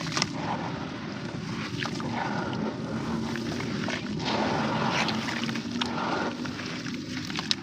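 Grey sand-cement shape crumbling in water: a steady crackling hiss with a few sharp clicks, louder for a couple of seconds in the middle.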